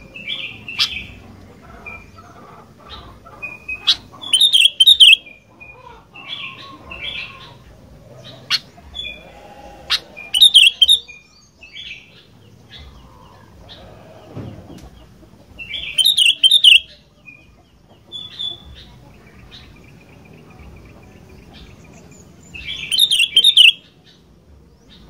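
Sooty-headed bulbul (kutilang) singing in loud, short bubbling phrases that recur about every six seconds, with single sharp whistled notes in between.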